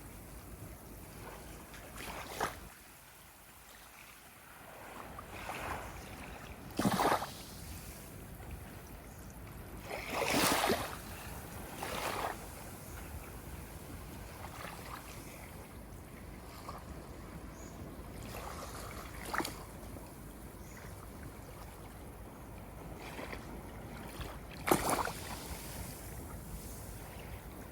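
Ocean water lapping, with a steady wash and six short splashes of small waves at irregular intervals.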